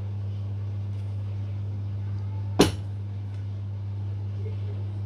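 A steady low hum with one sharp knock or clink about two and a half seconds in.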